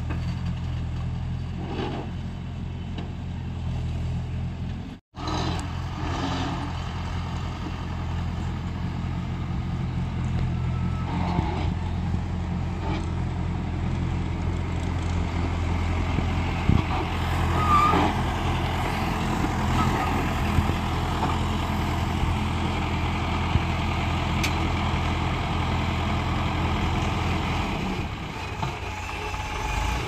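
A farm tractor's diesel engine runs steadily at low revs as it moves a trailer, with a few sharp clanks in the middle. The sound cuts out briefly about five seconds in, and the engine note changes shortly before the end.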